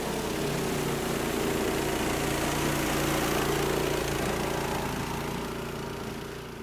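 An engine running steadily at idle, with a constant low hum. It fades out near the end.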